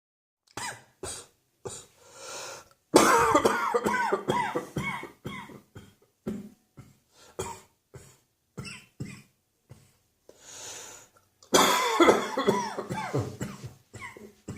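A person in a coughing fit: a few single coughs, then a long run of rapid coughs about three seconds in. More scattered coughs follow, and a second long run comes near the end.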